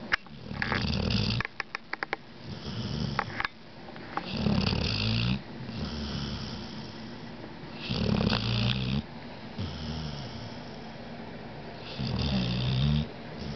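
Heavy snoring in a slow rhythm: a loud snore about every four seconds, each lasting about a second, with quieter breathing between them. A few quick clicks come about one and a half seconds in.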